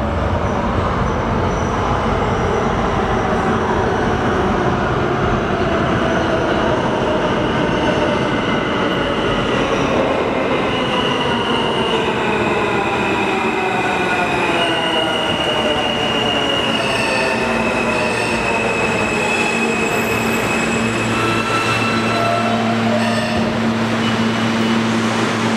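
R160A-1 subway train pulling into the station and braking to a stop. Its motors whine in a slow falling glide as it slows, with high wheel squeal through the second half. A steady low hum takes over once it halts, near the end.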